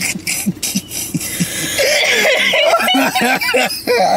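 People laughing in short, quick bursts, with a breathy, wheezing stretch of laughter about halfway through.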